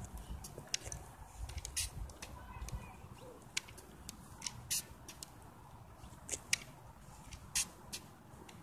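Sharp, irregular clicks and taps, about one or two a second, from aluminium forearm crutches and shoes on a hard court surface during a slow crutch-assisted walk, over a low rumble of wind on the microphone.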